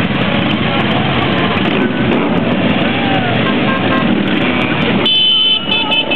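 Several motorcycles riding slowly past, engines running at low revs. About five seconds in a horn sounds, one short held blast followed by a few quick toots.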